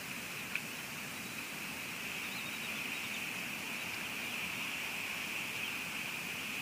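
Steady hiss of rain falling on an outdoor camera, with one faint tap about half a second in.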